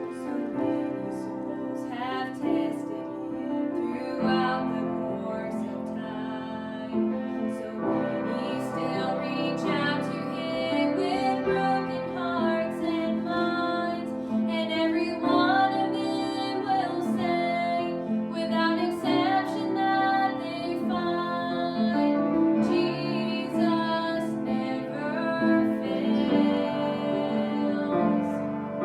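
Piano music with a woman singing over it.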